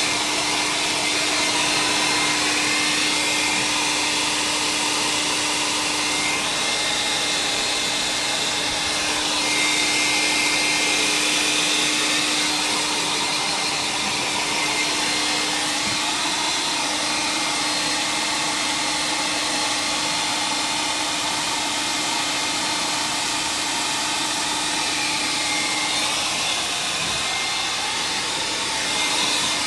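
Handheld electric dryer blowing steadily, drying wet paint on an art journal page. A low hum runs under the airflow and drops away a few seconds before the end.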